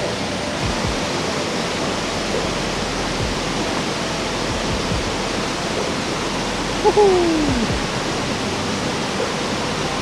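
Steady rush of a small waterfall and the shallow stream running below it. About seven seconds in, a short voice sound falls in pitch.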